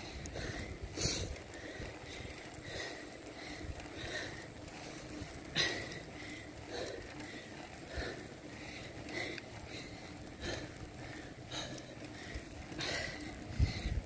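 A cyclist's quick, regular breathing while riding a bicycle, over a steady low rumble of tyre and wind noise.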